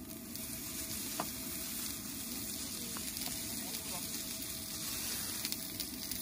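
Food sizzling steadily in a hot pan, with a few faint clicks and ticks.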